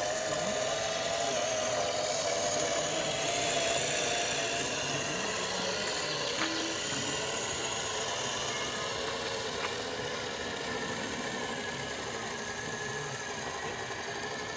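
Electric motor and gearbox of a radio-controlled model truck whining steadily as it crawls, the pitch wavering slightly with the throttle.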